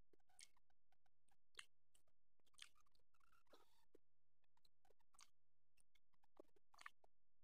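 Faint scattered clicks and soft wet smacks of a person eating rice with his fingers from a banana leaf: rice being mixed and squeezed by hand, a short soft rustle about three seconds in, then a bite and chewing near the end.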